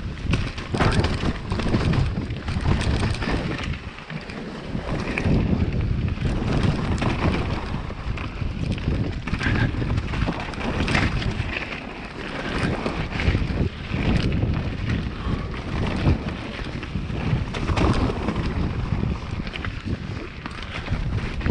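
Mountain bike descending a dirt forest trail: wind buffeting the microphone over a steady rumble of tyres on dirt, with frequent knocks and rattles as the bike hits roots and bumps.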